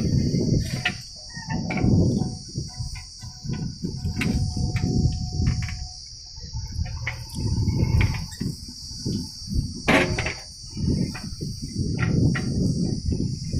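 JCB 3DX backhoe loader working, its diesel engine rumble swelling and fading unevenly with scattered sharp clanks, under a steady high-pitched insect buzz.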